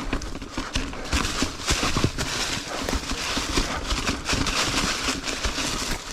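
Ibis Ripmo full-suspension mountain bike picking slowly over trail rocks: irregular knocks and clatter from the tyres and frame striking rock, over a steady hiss.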